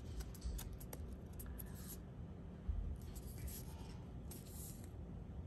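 Fingers handling a plastic film card in a cardboard sleeve: faint rubbing and light scratching of card and paper, with a few small clicks, mostly in the first two seconds and again around the middle.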